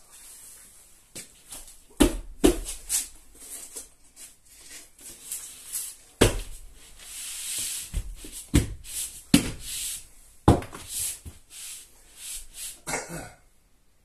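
Plasterboard sheet being knocked and slapped by hand to bed it into adhesive foam on the wall: a series of irregular sharp thumps, with a stretch of hand rubbing across the board about halfway through.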